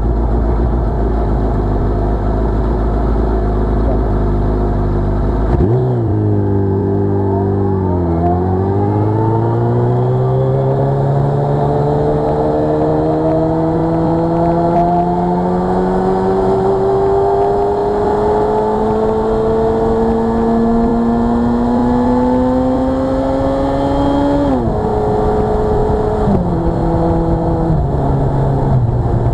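Suzuki Hayabusa's inline-four engine heard from the rider's seat: a steady low note for about five seconds, then it pulls away, the pitch rising, dipping once, then climbing slowly for about sixteen seconds before dropping sharply and falling in two more steps near the end.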